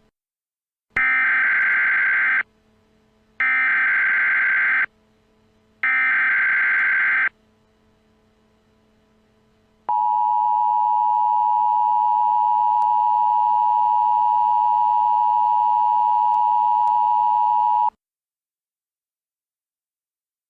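Three bursts of EAS SAME header data, each a harsh warbling digital screech about a second and a half long, then the steady two-tone EAS attention signal held for about eight seconds: the opening of a new emergency alert.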